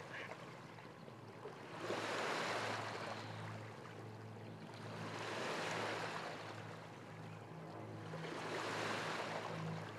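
Waves washing in, a rushing sound that swells and fades about every three and a half seconds, over low sustained bass notes.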